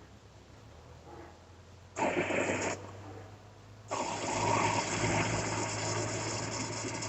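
Water poured into the upper tank of a car radiator: a short pour about two seconds in, then a steady pour from about four seconds on.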